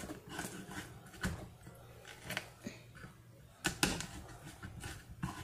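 Irregular light knocks and clicks of kitchen utensils being handled at the counter during food preparation, the loudest knock about 3.7 seconds in, over a low steady hum.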